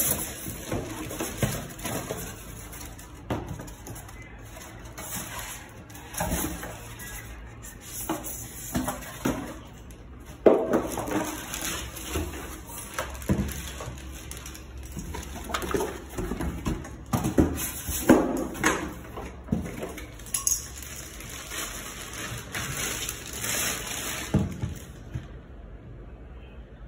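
Packaging being handled as a boxed electric water heater is unpacked: plastic wrap crinkling, polystyrene packing and cardboard rustling and scraping, with irregular knocks as the unit is moved. The rustling stops shortly before the end.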